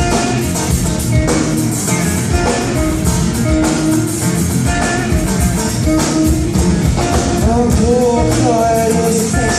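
Live rock band playing, with electric guitar and drums, and a singing voice in the later part of the stretch.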